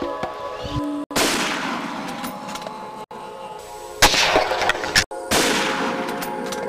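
Three gunshots, about a second in, at four seconds and just past five seconds, each trailing off in a long echo, over background music with held tones.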